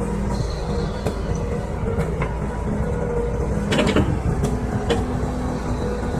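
Hydraulic excavator working: diesel engine running steadily with a held hydraulic whine, and several sharp metal clanks, the loudest about four seconds in.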